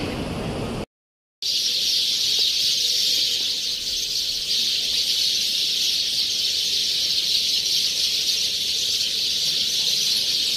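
A dense, steady chorus of many birds chirping together in trees where they are gathering to roost, blending into one continuous high-pitched din. It starts about a second in, after a brief moment of silence.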